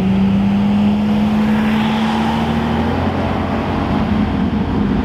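Car engines accelerating up a hill road as a line of cars drives past, one engine note rising slowly for about three seconds, then the sound changes as another vehicle comes by.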